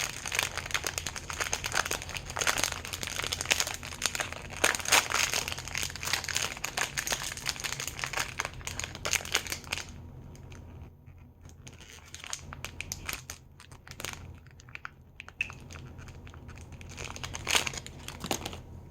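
A small plastic bag being torn open and crinkled by hand, with dense crackling for about ten seconds, then quieter, scattered crinkles.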